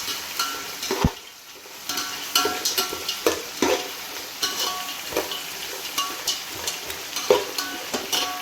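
Onions and green chillies frying in ghee and oil in a pot, sizzling while a metal spoon stirs them and clinks against the pot again and again, with a brief lull about a second in.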